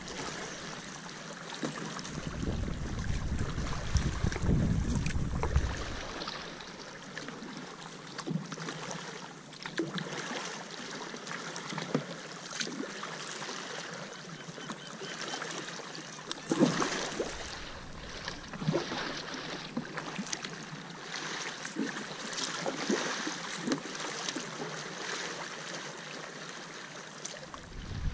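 Kayak paddle blades dipping and splashing in rhythm, with water lapping along the hull of a Wave Sport Recon kayak. Wind buffets the microphone at times, most strongly from about two to six seconds in.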